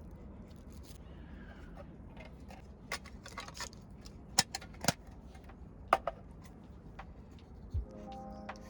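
A steady low outdoor rumble with a scattering of sharp clicks and knocks, the loudest about four and a half, five and six seconds in.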